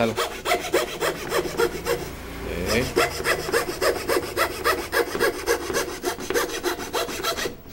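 Fine fret-saw blade in a hand frame saw cutting a thin wooden board along a curved line, in quick, even up-and-down strokes of about four or five a second, each a short scraping rasp. The strokes ease off briefly about two seconds in, then resume and stop just before the end.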